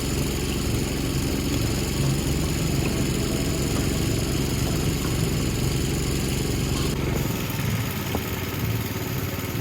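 Engine-driven welding generator running steadily at idle. Its deepest rumble drops away about seven seconds in.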